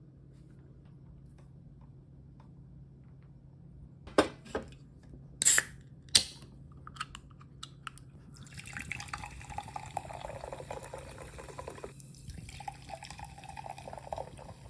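Three sharp knocks, then water running from a kitchen tap, pausing briefly and starting again.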